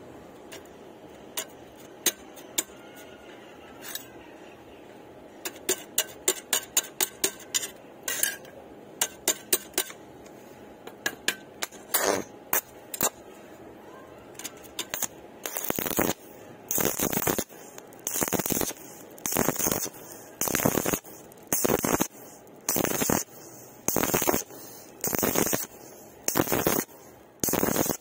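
A flux-coated stick electrode taps and clicks against rusty square steel tubing. About halfway through, the welding arc starts and crackles in short bursts roughly once a second, as the arc is broken and struck again along a horizontal joint.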